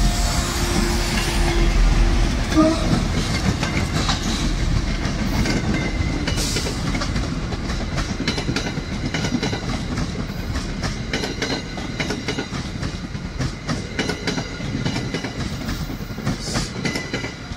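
MBTA Commuter Rail diesel push-pull train passing close at speed: the locomotive's low rumble, with a short horn note ending about two seconds in, then the coaches' wheels clacking over the rail joints, slowly fading as the train draws away.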